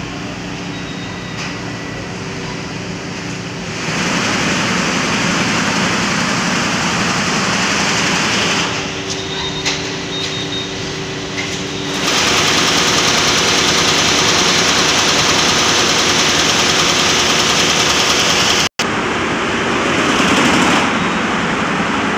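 Multi-head industrial embroidery machines running: a steady mechanical noise over a low hum. It grows louder about four seconds in and again about twelve seconds in, with a momentary gap near the end.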